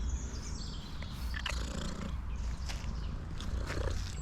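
A tuxedo cat purring steadily, with a few light clicks and rustles over it.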